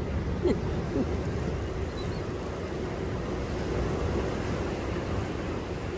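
Steady low rumble of wind buffeting the microphone, mixed with the wash of sea waves, with a few faint short sounds in the first second.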